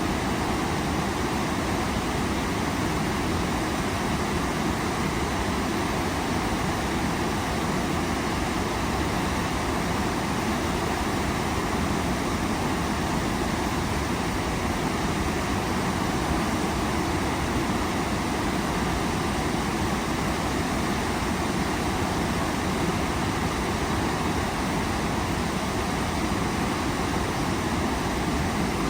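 Waterfall rushing: a steady, unchanging wash of falling water.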